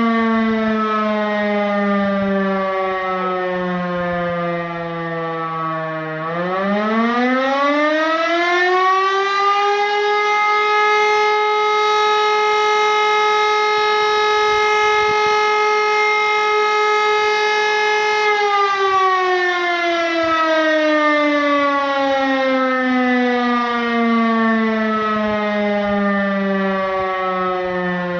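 Civil defence warning siren sounding during a siren test: its pitch falls at first, rises again about six seconds in, holds one steady tone for about eight seconds, then winds slowly down toward the end.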